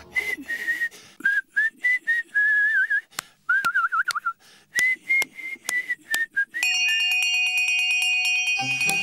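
Someone whistles a short, wandering tune in single notes, with a quick warbling trill in the middle, over scattered sharp clicks. Toward the end a steady high ringing tone comes in, and then music starts.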